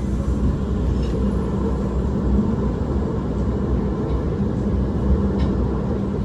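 KA Pangandaran passenger train running: a steady low rumble with a constant hum and a few faint ticks.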